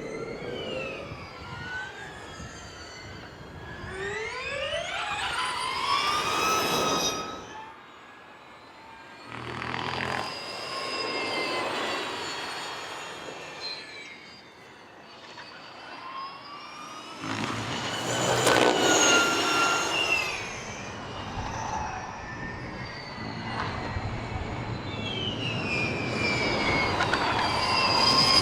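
Porsche Formula E electric race cars passing at speed: a high motor and gearbox whine that rises and falls in pitch as each car accelerates and goes by. There are several short passes with sudden changes between them, and the loudest comes about two-thirds of the way through.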